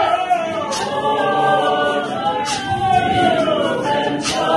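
Church choir singing a cappella, several voices together. A short, sharp accent comes in with the singing about every second and three-quarters.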